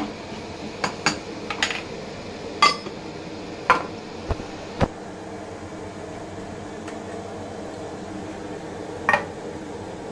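Kitchen utensils clinking and knocking against metal pans and containers: about eight sharp, separate clinks, most of them in the first five seconds and one more about nine seconds in. A steady low hum runs underneath.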